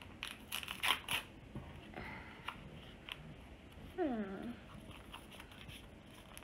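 Small plastic toy wrapper crinkling and crackling as it is pulled open by hand, in short clusters of crackles. About four seconds in, a brief whine falls in pitch.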